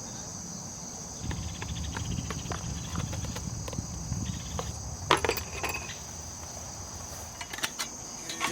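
Autumn crickets chirring steadily in the grass, with light clicks, rustles and small clinks of camping gear being handled over the top, sharpest about five seconds in.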